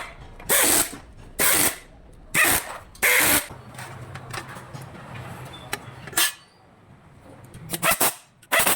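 A power tool run in short bursts of about a third of a second: four in the first few seconds, then two more near the end, with a low hum between them.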